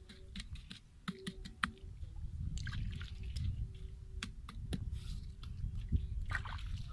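Hands pressing and patting damp soil, with scattered small crackles and clicks of crumbling clay. A faint steady hum comes and goes beneath it.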